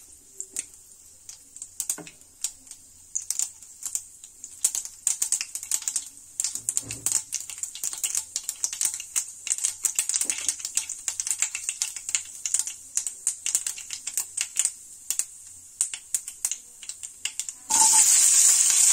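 Mustard seeds crackling in hot oil: irregular sharp pops, sparse at first and then coming thick and fast as the seeds splutter, the sign that the oil is ready for the next ingredient. Near the end, chopped onions go into the oil, which breaks into a loud, steady sizzle.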